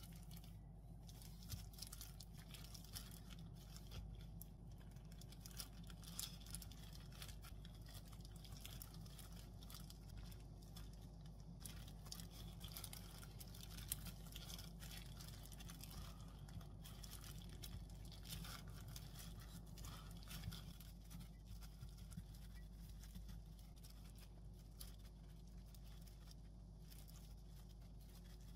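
Faint crinkling, rustling and small taps of hands in disposable plastic gloves spreading rice over a sheet of dried seaweed and rolling gimbap, over a steady low hum.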